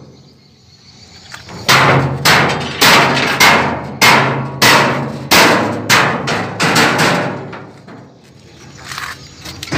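A hammer strikes a steel dump-truck bed wall plate about a dozen times, roughly two blows a second, each ringing briefly. The plate is being beaten down so that it sits flush against the frame.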